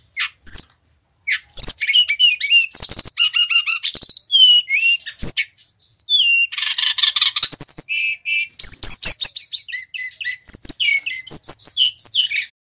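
Male brown-chested jungle flycatcher (sikatan rimba dada coklat) singing a long, unbroken run of quick varied whistles, chirps and trills, stringing together its learned phrases. A harsh rasping phrase comes about halfway through.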